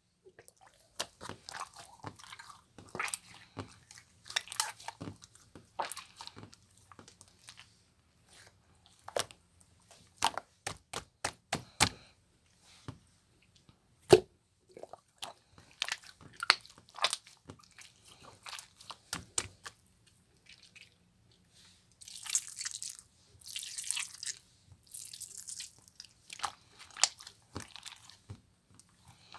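Hands squeezing and kneading a soft jelly slime, making irregular sticky clicks, pops and squelches. About two-thirds of the way through, the popping grows into a denser run of crisp crackling pops for a few seconds.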